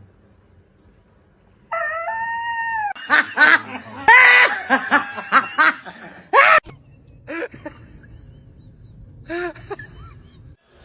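An animal's calls: one long pitched call about two seconds in, then a run of short, loud calls, and a few more near the end.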